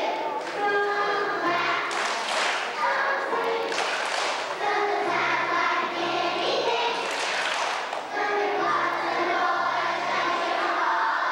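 Several voices singing a tune together in held notes, with a few knocks or thumps among them.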